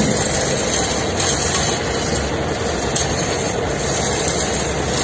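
Roll-on/roll-off ferry's engines running with a steady low rumble under an even rushing noise as the ship moves away from the pier.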